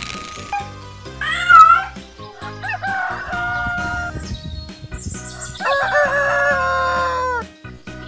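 Rooster crowing three times over background music. The first crow is the loudest and wavers in pitch; the last is long and held, dropping at the end.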